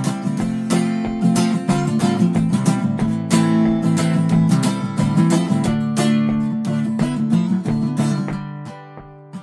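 Acoustic guitar with a capo strummed hard and steadily, with no singing, dying down near the end.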